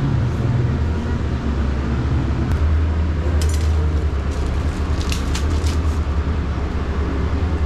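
Car in motion heard from inside the cabin: a steady low rumble of engine and road noise. A few faint high clicks or jingles come near the middle.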